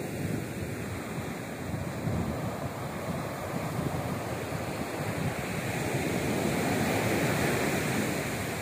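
Surf breaking and washing up a sandy beach, with wind buffeting the microphone. The wash grows louder about six to seven seconds in.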